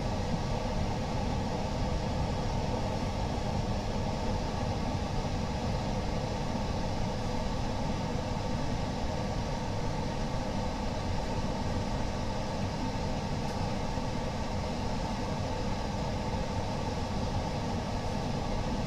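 Steady mechanical hum and hiss of a screen-laminating machine running, with no change in pitch or level.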